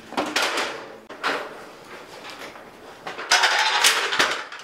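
Old wooden stepladder being picked up and moved: a few knocks of wood just after the start and again about a second in, then a clatter and scrape of wood lasting about a second, about three seconds in.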